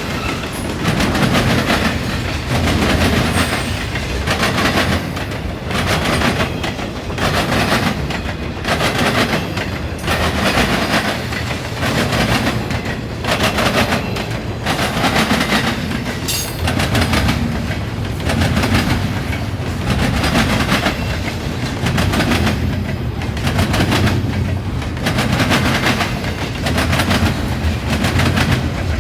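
Intermodal freight train passing at speed, its wheels hammering over a railroad diamond crossing. Loud, repeating clatter about every second or two.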